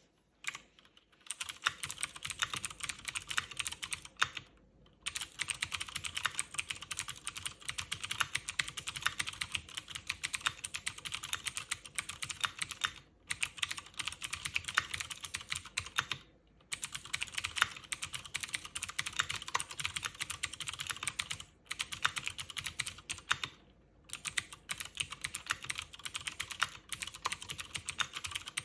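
Cherry MX Board 3.0S full-size keyboard with clicky Cherry MX Blue switches being typed on fast and continuously: a dense stream of sharp key clicks, broken by a few brief pauses. Recorded on a phone, which makes the clicks sound sharper than in person.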